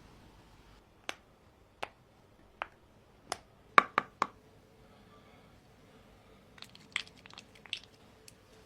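A series of sharp, short taps or clicks, about a second apart and then three in quick succession, followed a few seconds later by a cluster of lighter clicks.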